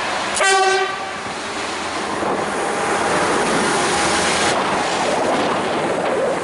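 Balfour Beatty track machine DR73937, a Plasser & Theurer 4x4C100-RT tamper, sounds one short horn blast about half a second in, then runs past with a steady rumble and clatter of wheels on rail that eases about four and a half seconds in.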